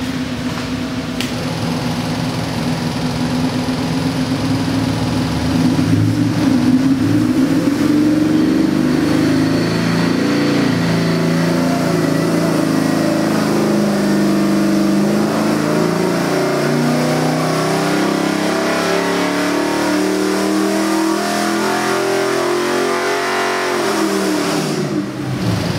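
Ford 7.3L Godzilla pushrod V8 crate engine making a wide-open-throttle pull under load on an engine dynamometer. It runs steadily for several seconds, then its pitch climbs steadily for about 18 seconds to over 5,000 rpm, and it drops away sharply near the end as the revs fall.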